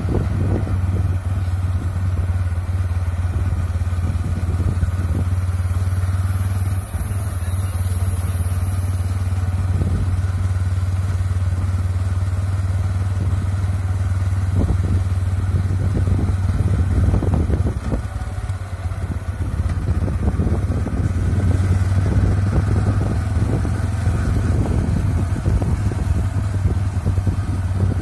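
Motorcycle engine running steadily while riding, a constant low hum, with wind rushing over the microphone.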